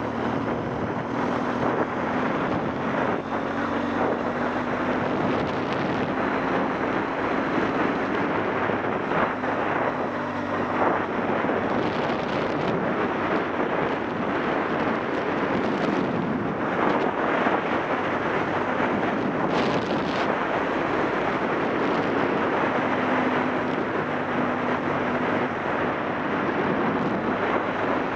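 Wind rushing over the microphone of a Yamaha XTZ 750 Super Ténéré at steady riding speed. The bike's parallel-twin engine note is mostly buried under the wind and comes through faintly for a few seconds at a time.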